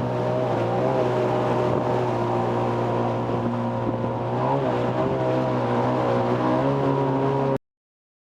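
Jet ski engine running at a steady speed, a droning note with only a small dip and rise in pitch about halfway through. It cuts off suddenly near the end.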